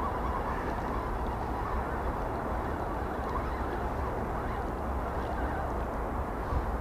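Steady low-pitched background noise, even in level, with no distinct events.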